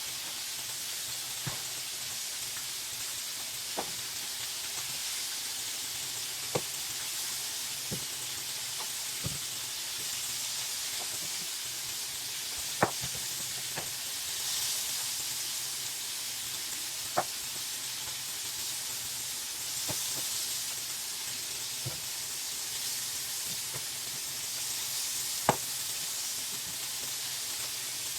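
Food sizzling in a hot pan, a steady hiss with scattered sharp pops and clicks.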